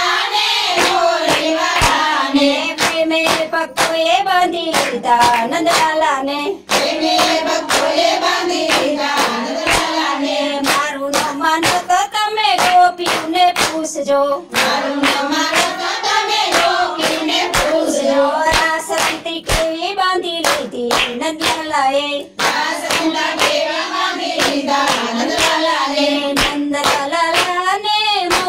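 A group of women singing a Gujarati devotional bhajan in unison, clapping their hands together in a steady, brisk rhythm.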